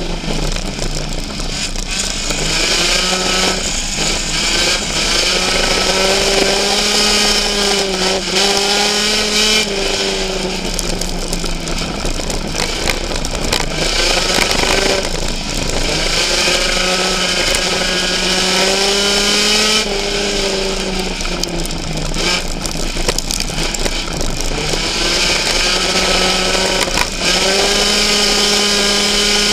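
Race car engine heard from inside the cockpit at racing speed, its pitch rising and dipping over and over as the throttle is opened on the straights and lifted for the turns.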